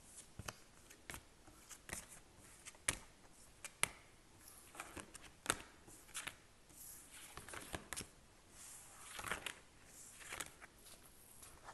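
Tarot and oracle cards being picked up and gathered off a tabletop: a string of light taps and clicks as cards are lifted and knocked together, with a few soft sliding swishes of cards across the table.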